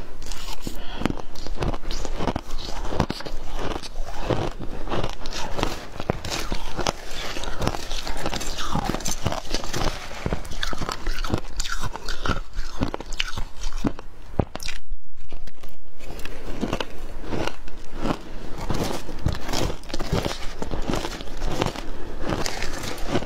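Shaved ice being bitten and chewed, close to a clip-on microphone: a dense run of sharp, crisp crunches, one after another.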